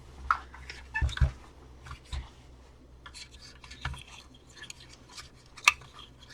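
Plastic parts and foam filter of a handheld vacuum being handled during disassembly: scattered clicks, scrapes and rubbing, with two low knocks about a second in and one sharp click in the second half.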